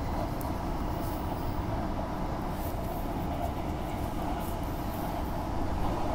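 Steady running noise of a Walkers Limited electric multiple unit heard from inside the carriage, wheels on rail with light ticks. Near the end it swells and grows brighter as another train passes close alongside.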